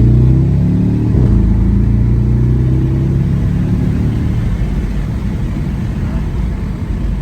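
Porsche Cayenne Turbo 958's twin-turbo 4.8-litre V8 pulling in second gear through an aftermarket SOUL exhaust with the secondary cats deleted, heard from inside the cabin with the windows down. The exhaust note is loudest early on and eases off gradually toward the end.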